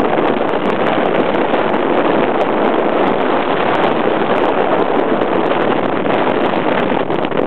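Steady wind rushing over the microphone on a moving Honda CT110 motorcycle, with the bike's small single-cylinder four-stroke engine running beneath it.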